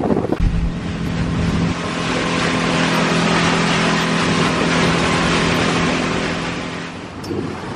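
Motorboat engine running at a steady cruising speed, a constant drone with the rush of water and spray against the hull. The drone starts about half a second in and fades near the end.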